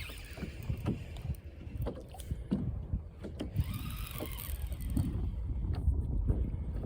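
Water sloshing with wind buffeting the microphone as a steady low rumble, broken by scattered light knocks.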